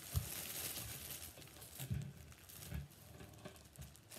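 Clear plastic packaging bag crinkling and rustling in the hands as a squishy toy is handled out of it, with a few thumps near the start, about two seconds in and a little later.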